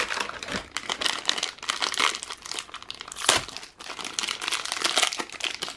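Plastic wrapper of a snack bar crinkling as it is handled, with one sharper crackle a little past the middle.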